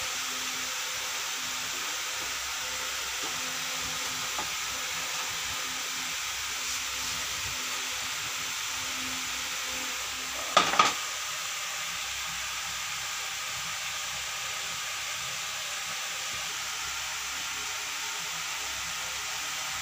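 Steady hiss, with a brief double knock about ten and a half seconds in, a hand handling the plastic casing of an induction cooker.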